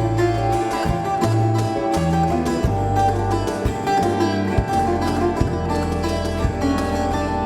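Live Latin-Indian fusion ensemble playing: plucked acoustic guitar and sitar lines over held bass notes that change about once a second, with sharp percussion strokes.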